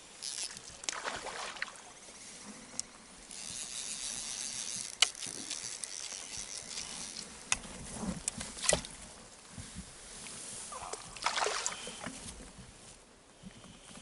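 Fly reel being worked while a hooked fish is played from a small boat: a spell of buzzing drag in the middle, several sharp clicks and a few short swishes of line or water.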